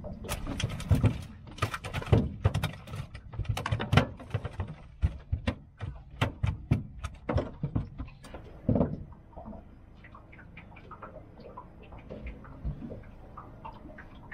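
A freshly landed small mulloway (jewfish) flapping and slapping against a hard surface as it is handled, an irregular run of sharp thumps over the first nine seconds or so, easing to a few light taps.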